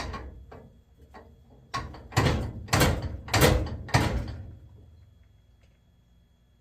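1-ton arbor press worked by hand to peen a loose rivet on a fishing reel's handle: a few light knocks, then about five heavy metal strikes, roughly two a second, the last one dying away. Hammering down on the press smashes the rivet back in place and tightens the loose handle.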